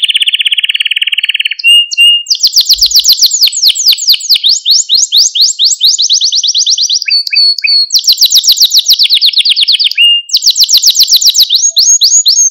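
Male canary singing: a lower, buzzy roll in the first second and a half, then a string of fast, high trills, each a second or two long, with short breaks around two, seven and ten seconds in.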